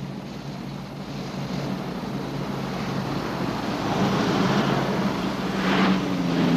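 Car traffic on a street: engines humming and tyre noise growing louder as cars drive past, with one passing close about six seconds in.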